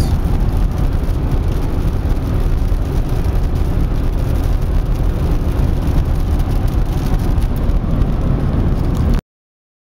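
Steady engine and road noise inside the cabin of a car driving along a highway, heaviest in the low end. It cuts off suddenly a little after nine seconds in.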